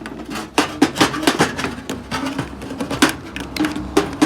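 Rapid, irregular sharp clicks and clatter, several a second, from multimeter test probes and a microwave capacitor being handled and tapped on the workbench.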